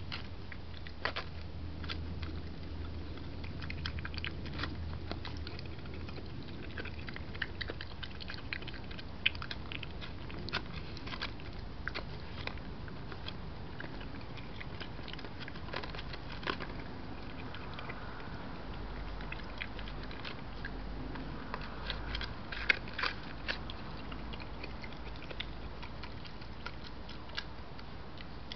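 European badger eating chicken from a dish: irregular wet chewing and crunching throughout, with a few louder crunches a little over three-quarters of the way through.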